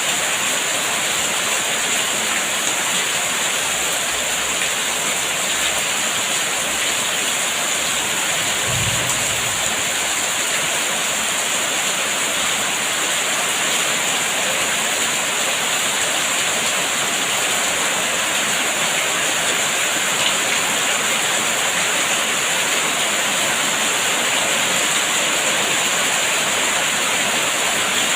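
Steady heavy rain falling, an even rushing hiss. A brief soft low thud about nine seconds in.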